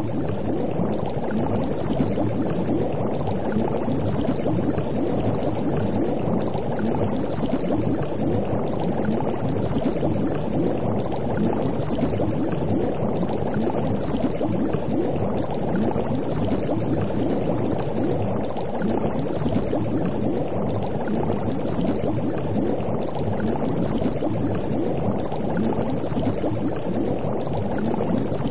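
Continuous underwater bubbling and gurgling, a dense churn of small bubbles that runs on steadily without a break.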